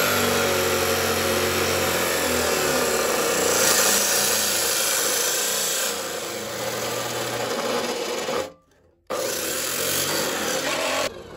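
Metal chop saw cutting through perforated square steel tubing, the disc grinding through the steel and throwing sparks. The sound cuts out for about half a second around eight and a half seconds in, resumes, and stops near the end.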